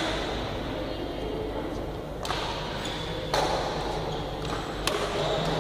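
Badminton rackets striking the shuttlecock during a doubles rally: three sharp cracks, roughly one to one and a half seconds apart, over a murmur of voices.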